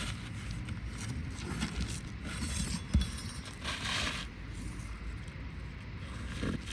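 Asphalt roofing shingles scraping and rustling as they are handled and slid into place, with one sharp tap about three seconds in, over a steady low rumble.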